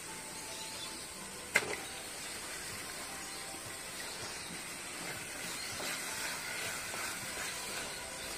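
Onion-and-spice masala frying in oil in a metal pot, a steady hiss, with one sharp knock about a second and a half in. Raw beef chunks are then tipped in and stirred with a wooden spatula, the sound getting a little busier.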